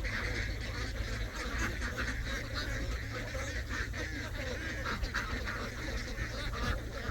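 A large flock of domestic ducks quacking continuously, many calls overlapping into a constant din, over a steady low rumble.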